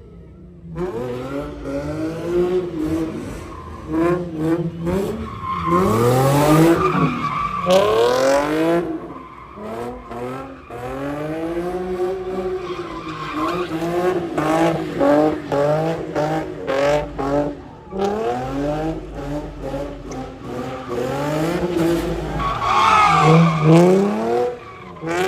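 A car doing donuts, its tyres squealing and skidding on the pavement. The engine revs up and down again and again.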